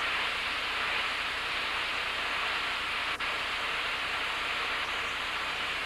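Steam locomotive venting steam from the top of its boiler: a steady, even hiss that cuts off just before the end.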